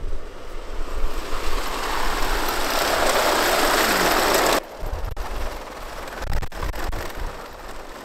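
Jeep Wrangler Unlimited on rubber snow tracks driving over packed snow: a rushing track-and-snow noise that grows louder, then cuts off abruptly about four and a half seconds in. Quieter running with a few sharp clicks follows.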